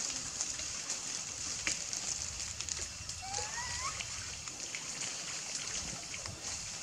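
A young macaque swimming and splashing through a duckweed-covered pond, with a short rising call a little past three seconds in over a steady high hiss.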